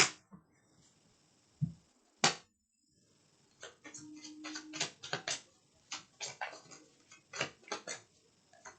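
Tarot cards being pulled from a deck and laid down: two separate clicks, then from about a third of the way in a long run of quick, irregular card taps and flicks.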